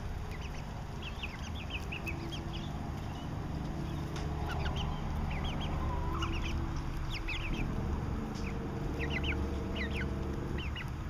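Five-week-old chickens, brown leghorn cockerels and mixed-breed pullets, peeping in short, high chirps that come in quick clusters, over a steady low hum.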